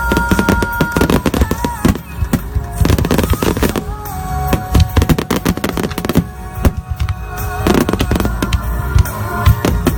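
A barrage of fireworks shells bursting in rapid succession in a grand finale, many bangs and crackles overlapping, with music playing underneath.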